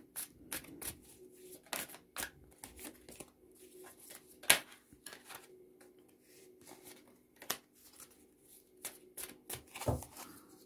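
Lenormand cards being shuffled and handled: a scatter of light flicks and taps of card on card, with one sharper snap about four and a half seconds in.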